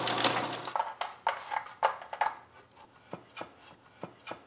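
A food processor running as it blends shortbread crust dough (flour, cornmeal, butter, brown sugar), switched off under a second in. After it come about ten light knocks and taps at uneven spacing, from the metal baking pan and hands on the counter as the dough is pressed into the pan.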